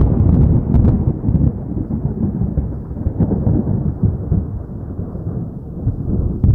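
Thunder sound effect: a loud, low, continuous rumble that slowly fades, with a few faint crackles in it.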